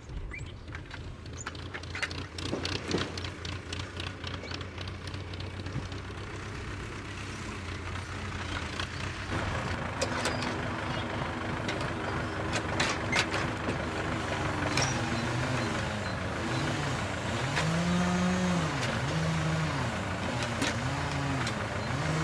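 Farm tractor's diesel engine running while its hydraulic timber crane and grapple handle a log. Scattered knocks and clanks come in the first half. From about ten seconds in, a steady engine note sets in, and a few seconds later it rises and falls in pitch over and over as the crane is worked.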